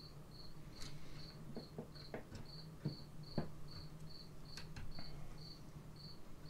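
Small clicks and taps of metal parts as the carburetor linkage on a Stihl 031 AV chainsaw is worked loose by hand, the sharpest about three seconds in. Behind them a high chirp repeats evenly about two and a half times a second over a low steady hum.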